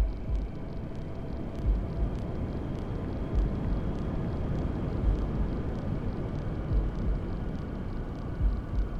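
Steady hair-dryer white noise with a faint motor whine, overlaid with a recorded fetal heartbeat: a low double thump about every 1.7 seconds.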